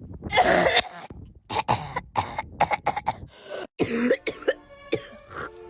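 A person coughing: one long, hard cough about half a second in, then a quick run of short hacking coughs, with a few strained coughs that carry voice in the second half.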